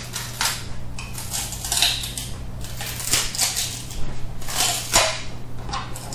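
Flexible metal 3D-printer build sheet being handled and flexed to release a PLA print: irregular scraping, crackling and sharp clicks of the sheet and the part.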